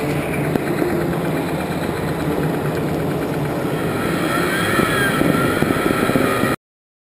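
A small engine running steadily with an even, fast beat, cutting off abruptly near the end.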